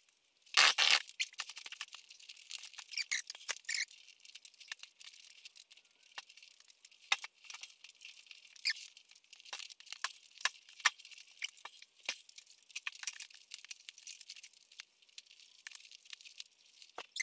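Vinyl seat upholstery rustling, crinkling and squeaking as it is pulled and stretched down over the foam of a truck bench-seat bottom, with many short sharp crackles and scrapes and a louder burst about a second in. The foam has been dusted with baby powder so the cover slides over it.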